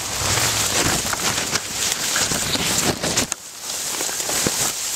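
Leaves and stems rustling and scraping against a handheld camera's microphone as it is pushed through dense leafy brush, a thick crackling that eases off about three seconds in and leaves a few scattered snaps.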